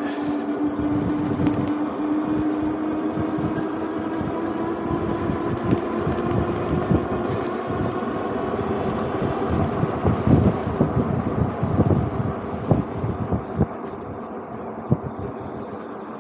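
Super73 ZX e-bike's electric motor whining under throttle up a steep hill, its pitch rising slowly as the bike gains speed, then fading. Wind buffets the microphone throughout, in thumping gusts that grow stronger in the second half.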